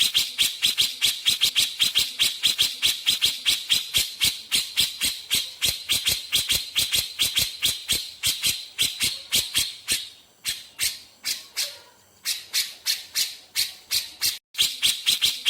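Grey-cheeked bulbul (cucak jenggot) singing a fast string of sharp, high notes, about five a second, in the rapid-fire 'nembak' style, with a short lull about two-thirds through.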